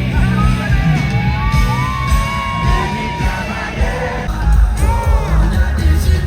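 Music with a sung vocal over a heavy, pulsing bass.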